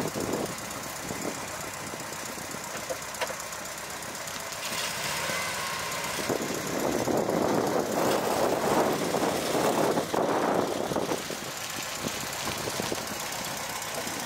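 Volkswagen T3 (Bulli) van engine running at low speed while the van is manoeuvred, getting louder for a few seconds around the middle before easing back.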